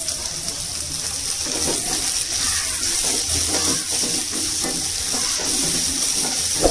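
Chopped onions, green chillies and curry leaves sizzling in hot oil in a nonstick kadai. A wooden spatula stirs them and scrapes over the pan in irregular strokes.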